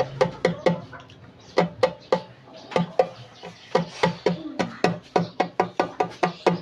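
A Chinese keypad mobile phone being switched on, its loudspeaker wired directly to the board. A rapid run of short, sharp clicks, each with a brief low tone, comes about four a second and closer together near the end.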